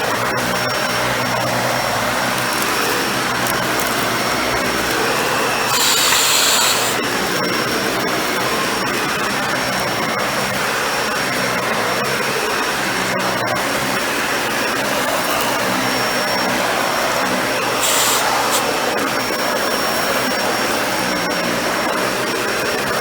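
Dyson Ball Animal 2 upright vacuum running steadily, a whooshing airflow with a thin high whine. Twice, about six seconds in and again near eighteen seconds, it gives a louder hiss for about a second.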